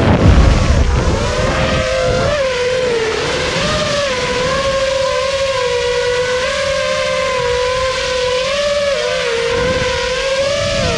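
FPV quadcopter's brushless motors and propellers whining at a steady cruising pitch, the tone wavering slightly up and down with the throttle. Wind rumbles on the onboard camera microphone for about the first second.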